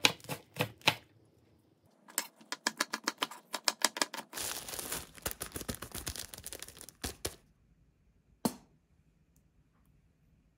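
Kitchen knife chopping green onion on a wooden cutting board: a few separate chops, then a fast run of chops a couple of seconds in. A stretch of crinkly plastic-bag rustling and more light clicks follow, with a single knock later on.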